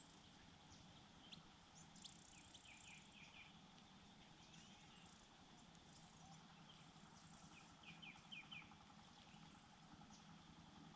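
Faint bird chirps: two quick runs of short, falling notes, about three seconds in and again around eight seconds, over a low steady background hiss.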